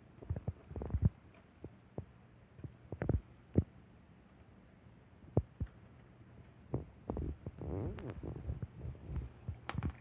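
Irregular light clicks, knocks and low thumps from a game of fetch with dry dog food: the kibble landing on the floor and the cat scrambling after it, with a busier stretch of scuffling about seven seconds in.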